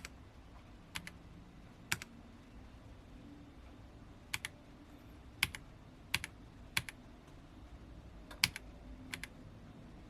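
Royal Kludge RK-H81 mechanical keyboard with brown switches: single keys pressed one at a time, about nine separate clicks at irregular gaps of roughly half a second to two seconds, some in close pairs.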